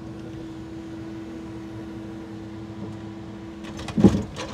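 Steady hum of the truck engine and timber-crane hydraulics, heard from inside the crane cab. Near the end come a few clicks and a heavy thump about four seconds in as the grapple sets a bundle of wooden crane mats down on the stack.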